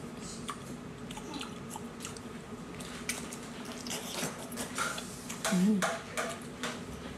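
Close, wet chewing, biting and lip-smacking as a whole octopus in chili oil is eaten, with the ink-filled head being sucked and bitten; a run of louder smacks comes about five and a half seconds in.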